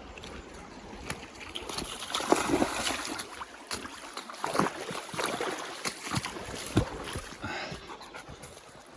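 Irregular splashing and sloshing in shallow water, with a few sharper splashes.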